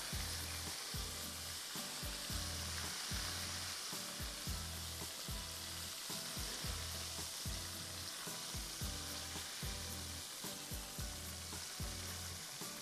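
Chicken wings deep-frying in hot oil in a wok, sizzling steadily as a slotted spoon stirs them. A low pulse repeats underneath about every three-quarters of a second.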